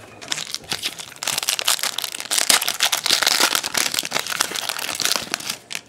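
Crinkling of a trading-card pack's foil wrapper being handled and opened: a dense, crackly rustle that starts about a second in and stops just before the end.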